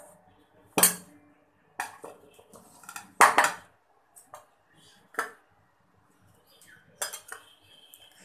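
Ceramic bowls and plates clinking and knocking: about six separate sharp knocks at uneven intervals.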